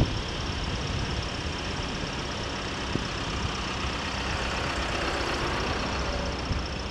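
Steady engine and road noise of a vehicle travelling along a rough asphalt road, with a short knock at the start and another about three seconds in.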